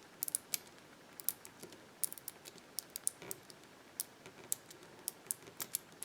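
Number wheels of an aluminium Abus combination padlock turned by hand, giving light, irregular clicks from the wheel detents, several a second. The wheels are being turned with the shackle under pressure to feel for the loose spot of each wheel's correct number.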